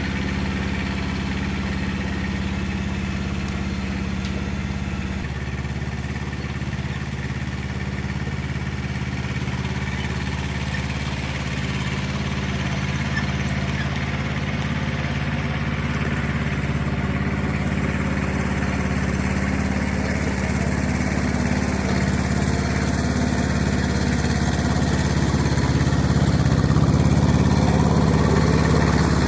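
An engine running steadily at a constant speed, growing a little louder near the end.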